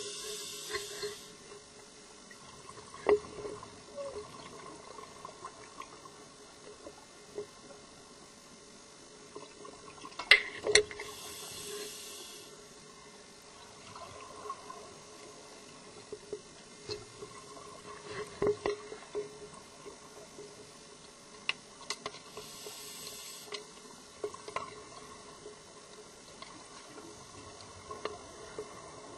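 Scuba diver's breathing gear heard underwater: a hiss of about a second roughly every eleven seconds, with water sounds and scattered clicks and knocks in between.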